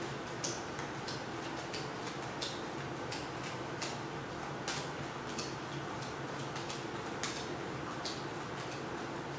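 Playing cards being dealt one at a time off a deck and laid on a wooden table: irregular light clicks and snaps, about one or two a second, over a steady background hiss.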